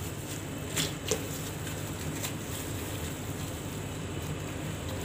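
Gloved hand squeezing roasted raw mango pulp in a bowl of water: soft squelching, with a few brief sharp splashes near the first second and again a little after two seconds, over a steady background hiss.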